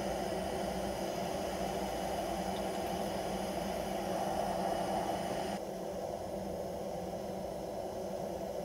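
Steady rushing hiss of water heating over a portable gas burner, with faint steady tones in it. The higher part of the hiss cuts off abruptly about five and a half seconds in.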